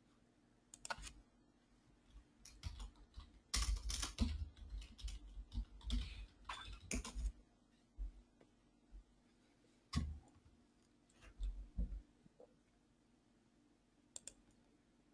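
Typing on a computer keyboard, irregular clicks with dull thumps beneath, densest in a run from about three and a half to seven and a half seconds in, then a few short scattered groups.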